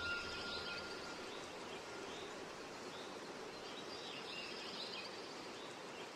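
Faint outdoor woodland ambience: a steady background hiss with birds chirping now and then. A thin high tone fades out over the first two seconds.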